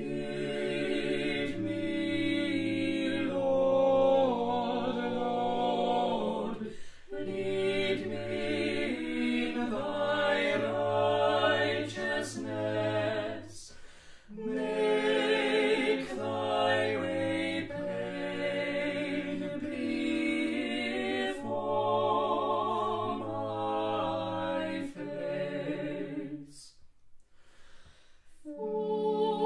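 Small vocal ensemble of four unaccompanied voices, one female and three male, singing a cappella in close harmony. The phrases are sustained, with brief breaths between them about 7, 14 and 27 seconds in.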